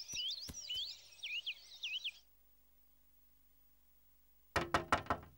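Cartoon birdsong effect: quick, rapidly chirping birds with light ticks for about two seconds, cut off abruptly into silence. Near the end comes a quick run of sharp clicks.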